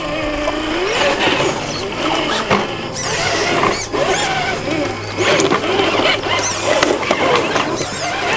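Electric motor and gearbox of a Traxxas TRX-4 RC crawler whining, the pitch rising and falling repeatedly as the throttle changes while it crawls over a wooden ramp. A few sharp knocks come through as well.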